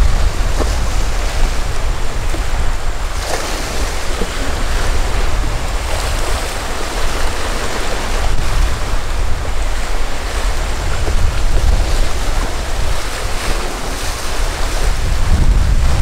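Wind buffeting the microphone in a low, uneven rumble over a steady wash of waves and surf.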